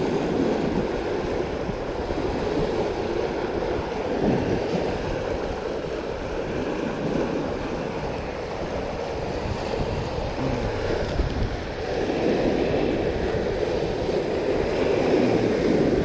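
Sea surf washing against a rocky shore: a steady rush that swells louder over the last few seconds.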